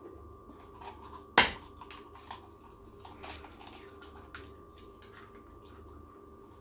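An egg rapped sharply on the rim of a nonstick frying pan about a second and a half in, followed by a few softer clicks and taps as the shell is pulled apart over the pan.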